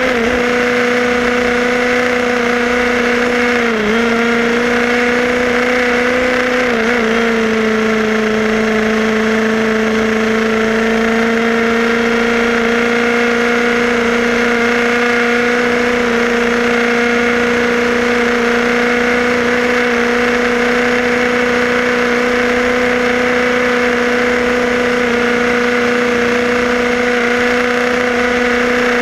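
HPI Baja 5B SS 1/5-scale RC buggy's two-stroke petrol engine running steadily under throttle, heard from a camera on the car. The note dips briefly about four seconds in and again about three seconds later, then holds steady.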